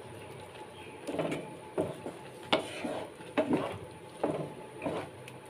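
A spatula scraping and stirring soft cheese curds and sugar around a frying pan, in short strokes a little under a second apart, starting about a second in. The curds are being worked into reduced, sweetened milk.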